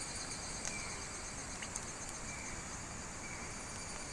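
Insects chirping in a steady, high-pitched chorus of several pulsing tones, over an even hiss with a few faint clicks.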